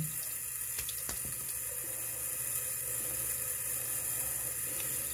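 Bathroom sink tap running steadily, with a few faint clicks about a second in.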